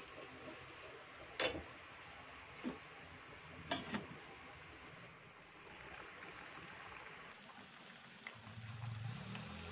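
Water pouring into a pan of vegetables and fish. Then a few sharp clinks of cookware as the pot lid is set on. Near the end, the paksiw broth bubbles at a low simmer under the lid.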